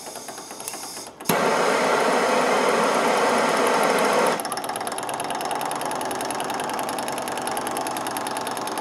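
Small beta-type Stirling engine running with a fast, even mechanical ticking. About a second in, a handheld butane torch lights with a click and hisses loudly for about three seconds as it reheats the engine's hot end to boost the slowing engine, then cuts off while the ticking carries on.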